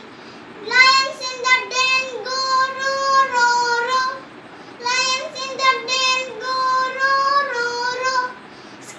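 A young child singing a rhyme with no instruments, in two phrases with a short pause between them.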